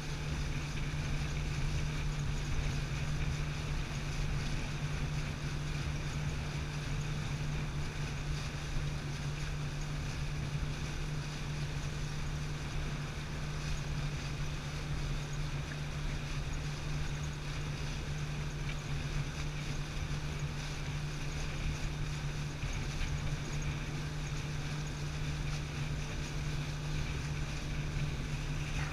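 Pontoon boat under way at a steady cruise: the motor's even drone with a constant low hum, mixed with wind on the microphone and water rushing past the hull.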